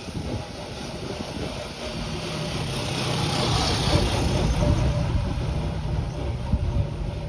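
Jet engines of an Airbus A320-family airliner running as it rolls along the runway after landing: a low rumble with a hiss over it, swelling to a peak about halfway through and then easing slightly.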